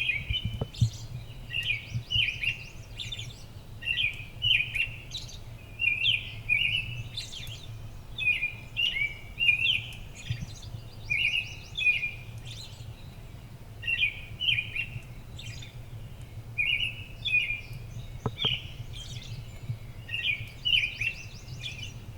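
Small songbirds chirping: short, high chirps in quick clusters, repeating over and over. A steady low hum runs underneath.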